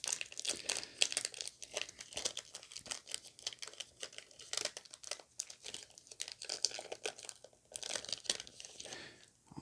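Pokémon trading cards and their booster-pack wrapper being handled: a long run of light, irregular crinkles and rustles.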